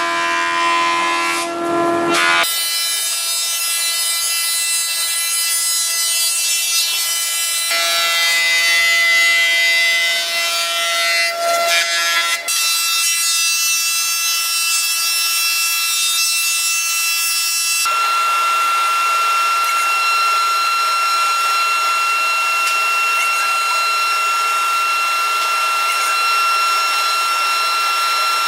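Woodworking machine cutting timber: a loud, steady, high-pitched whine of many layered tones over a hiss. The whine's tone pattern changes abruptly about four times.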